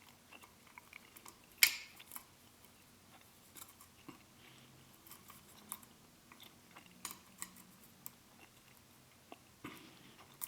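Scattered light metallic clicks and ticks of lock picks and a tension tool being handled at a small pin-tumbler cam lock, with one sharper click about a second and a half in.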